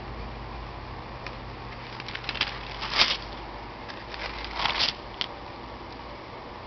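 A page of a stamp stock book being turned, with its stiff leaf and translucent interleaving sheet rustling and crackling. There are two bursts, the first about two to three seconds in with a sharp crack at its end, the second around four and a half to five seconds, over a steady low hum.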